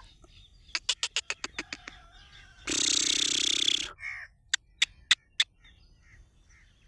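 Black francolin giving one harsh, grating call lasting about a second, with runs of sharp clicks before and after it.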